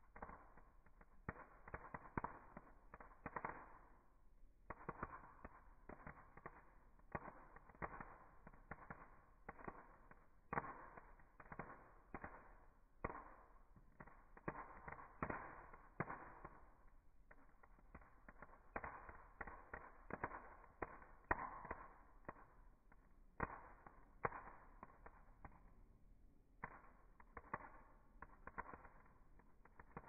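Small campfire burning in a metal mesh fire basket, faintly crackling with frequent irregular sharp pops.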